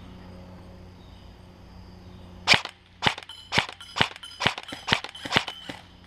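G&G GR16 A3 electric airsoft rifle firing single shots, sharp snaps about two a second that begin about two and a half seconds in.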